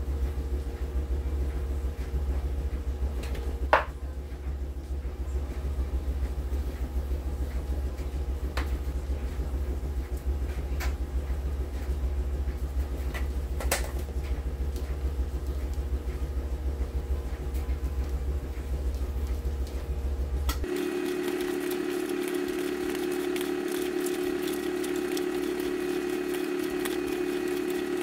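A steady low hum with a few sharp clicks. About 21 seconds in, the hum shifts to a higher steady tone, and quick light scraping and clicking begins: a utensil stirring seasoning in a plastic measuring cup.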